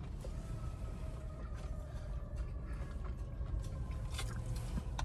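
Quiet car-interior ambience: a steady low rumble, with the faint whine of passing traffic and a few soft clicks.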